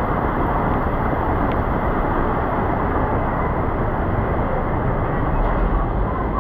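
Heavy rain coming down steadily, an even, unbroken wash of noise.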